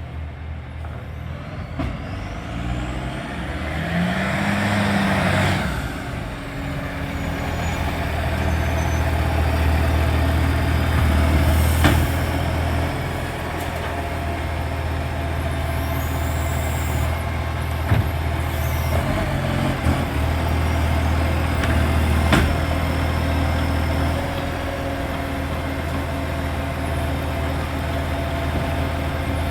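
Garbage truck's diesel engine running steadily, its exhaust leaking. There is a burst of air hiss about four seconds in, and three sharp knocks in the second half.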